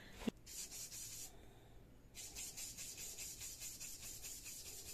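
Foam ink blending tool rubbed over card through a stencil in quick repeated strokes, a scratchy rubbing that is quite noisy for such a small tool. It stops for under a second about a third of the way in, then carries on.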